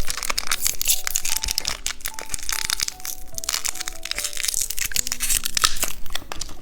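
Close-miked crunching and chewing of a small candy, a dense run of sharp crackles, over soft background music.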